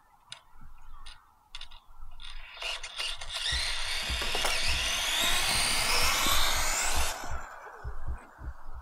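A micro RC monster truck's Furitek Mini Godzilla brushless motor and two-speed gearbox whine at full throttle on a speed run. From about two and a half seconds in, the whine rises steadily in pitch, then cuts off suddenly near seven seconds.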